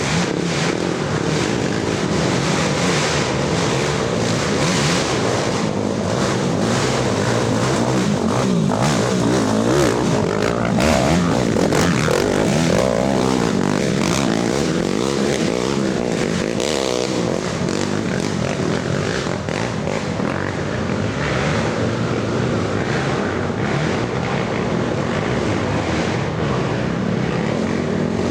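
Racing ATV engines running hard, rising and falling in pitch as the riders rev up and back off.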